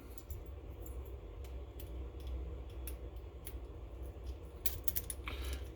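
Scattered small metallic clicks and taps of a padlock being handled and worked, with a quick cluster of clicks near the end, over a faint steady low hum.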